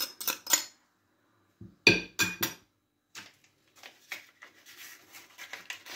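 Metal spoon clinking against a bowl and glass: a quick run of clinks, a louder clatter with a brief ring about two seconds in, then only faint light ticks.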